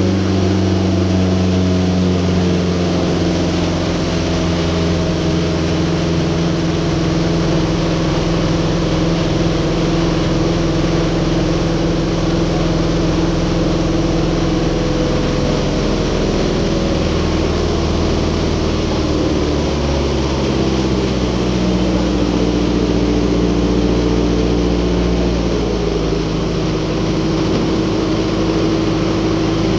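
Pasig River ferry boat's engine running steadily, its note shifting about halfway through as the engine speed changes.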